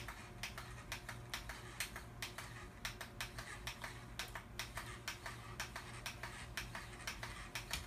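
Cats licking a lickable paste treat off a toy forklift: a fast, irregular run of small clicks, several a second.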